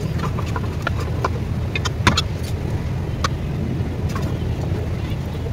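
Aluminium cooking pots knocking and scraping as chicken curry is tipped out of one pot onto a layer of rice in another: a few sharp metal clinks, the clearest about two seconds in and just after three, over a steady low rumble.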